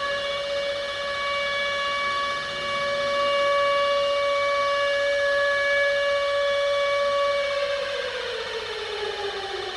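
Air-raid warning siren sounding a steady, held tone, then winding down in pitch over the last couple of seconds.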